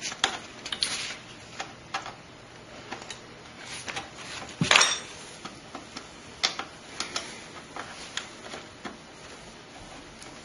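Small plastic clicks and taps from front-panel connector leads and cables being handled and pushed onto a motherboard pin header inside a PC case. One louder knock comes about halfway through.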